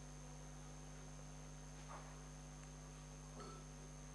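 Near silence: a steady low electrical hum and a thin high whine from the recording chain, with two faint, brief soft sounds, one about two seconds in and one about three and a half seconds in.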